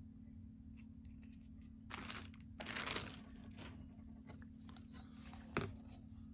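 Plastic figure packaging crinkling and tearing in two bursts, the second, about three seconds in, the louder, then one sharp click near the end, over a low steady hum.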